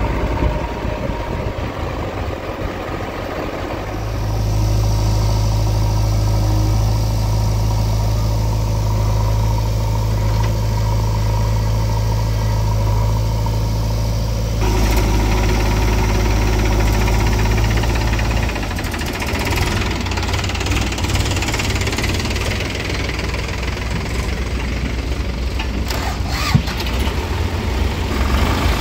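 Diesel engines of a JCB 3DX backhoe loader and farm tractors running steadily, a low engine hum that grows louder about four seconds in and changes abruptly twice more, near the middle.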